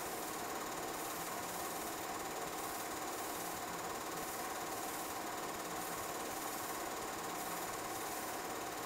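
Steady mechanical whir and clatter of a film projector running, an even machine sound with a faint regular pulsing.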